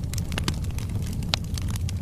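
Wood fire burning in a fireplace: burning logs crackling with scattered sharp pops over a steady low rumble of the flames, one louder snap just past halfway.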